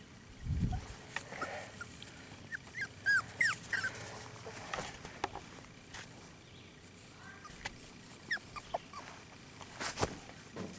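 Young puppies whimpering and squeaking in short, high calls that rise and fall, scattered through, with a low thump near the start and a sharp click near the end.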